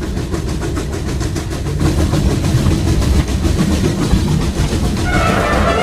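Train running along its rails: a steady low rumble with a fast, even clickety-clack. A higher-pitched sound joins near the end.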